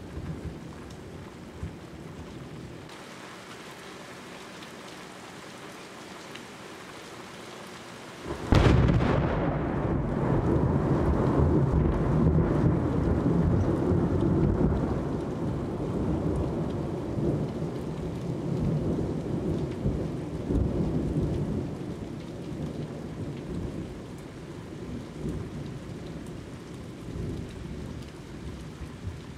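Steady rain, then about eight seconds in a sudden loud crack of thunder followed by a long rumble that slowly dies away over the next fifteen seconds or so.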